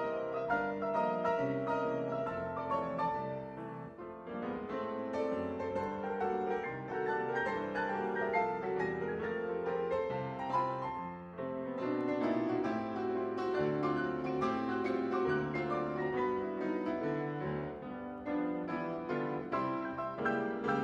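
A piano ensemble playing a ragtime piece: quick, bright right-hand notes over a steady, bouncing bass line. There are brief softenings about four seconds in and again near the middle.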